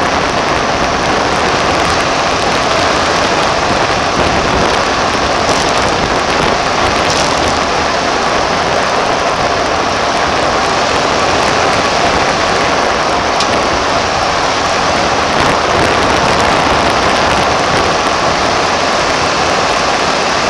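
Steady wind and tyre noise on the microphone of a camera bolted low on the front plow frame of a moving 1992 Chevrolet Suburban K1500.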